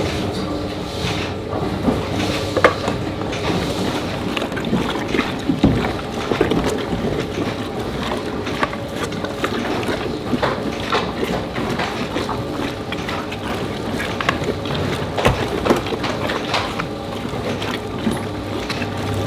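Spiral dough mixer running, its hook kneading a full bowl of bread dough: a steady machine hum with irregular knocks and clicks.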